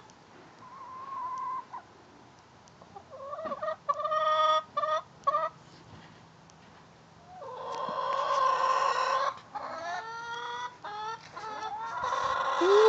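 Backyard laying hens (production reds) clucking and calling in short bursts with quiet gaps, including a longer drawn-out call about eight seconds in.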